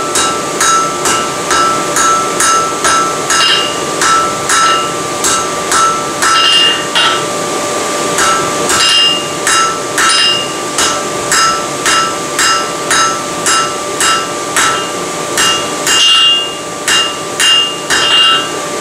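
Hand hammer striking red-hot steel on an anvil, about two to three ringing blows a second with two short breaks, as the bar is forge welded and drawn out. A steady hum runs underneath.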